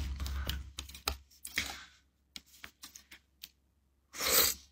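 Fingers working the pull-tab of a metal can: a run of small clicks and scrapes, with a short burst of noise at the start and another near the end.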